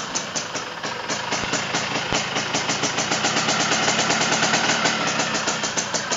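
1981 Yamaha RX-S's two-stroke single-cylinder engine running at idle with an even, rapid pulsing exhaust beat, having just been brought to life after refusing to start.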